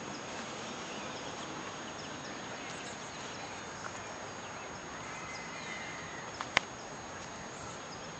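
Steady outdoor background noise with a few faint clicks and one sharp click about six and a half seconds in.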